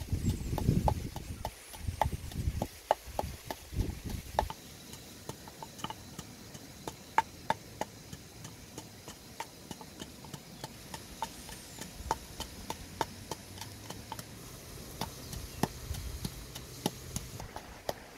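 Wooden pestle pounding and grinding in a clay mortar: a run of short knocks, with heavier thumps in the first few seconds and lighter, irregular taps after.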